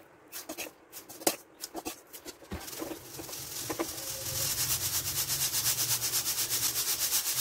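A slotted steel skimmer clinks and scrapes against a kadhai, scooping roasted cornflakes out of hot salt. From about two and a half seconds in, a mesh strainer of cornflakes and roasted peanuts is shaken in a fast even rhythm, a rattling hiss of salt grains sifting out through the mesh.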